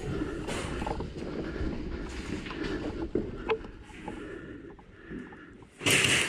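Rumbling, rubbing noise on a helmet-mounted camera's microphone as the player moves, with scattered small clicks and a loud, sudden noisy burst near the end.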